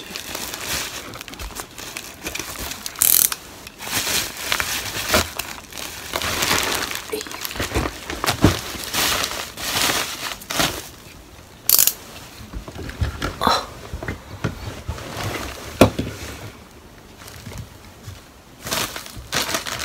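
A woven plastic parcel sack being torn open and rummaged through, with the plastic bags inside crinkling and rustling. The bursts come irregularly, with a few brief louder rips and crackles.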